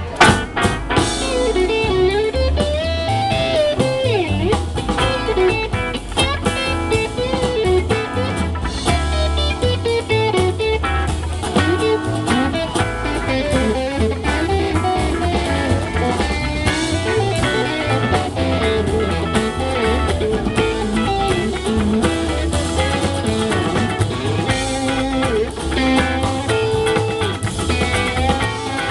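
Live blues band playing: electric and acoustic guitars over upright double bass and drum kit.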